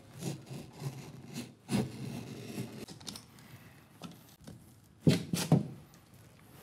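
Stanley knife blade scoring through GIB plasterboard, in uneven scraping strokes along the cut line, with a louder stroke about five seconds in.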